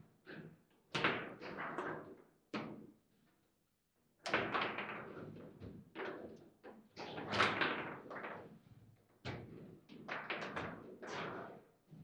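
Table football (foosball) in play: sharp knocks, clacks and thuds of the ball striking the rod-mounted players and the table walls, and of the rods being worked, in quick irregular clusters with a short silent gap about three seconds in.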